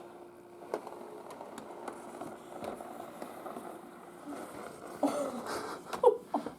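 Faint steady indoor hum with a few light clicks and rustles, then a couple of short voice sounds near the end.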